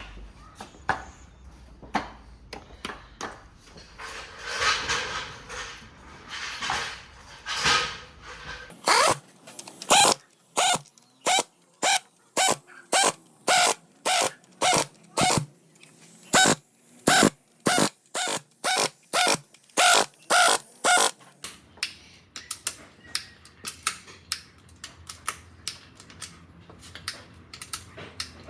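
Sharp mechanical clicks, about two a second for some twelve seconds, loudest in the middle, then fainter, quicker ticking.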